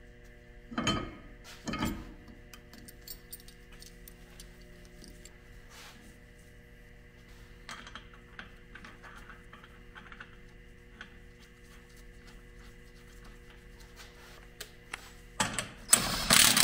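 Metal clinks as a steel brake rotor is fitted over a wheel hub: two sharp knocks about a second apart, then faint ticks of the disc and gloved hands. Near the end a loud, steady rushing noise starts.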